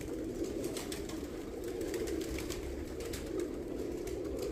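A flock of domestic pigeons cooing, many birds at once, in a steady low chorus.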